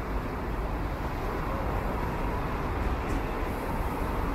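City bus idling at a stop, a steady low engine rumble over street traffic noise.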